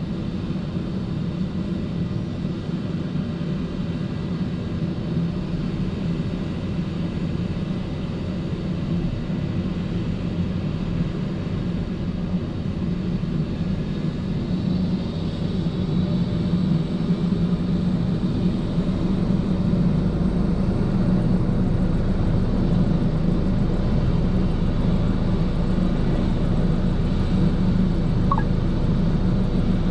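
Rescue helicopter running on the ground ahead of take-off, a steady low rotor-and-turbine rumble with a faint high whine, growing louder from about halfway through as it spools up.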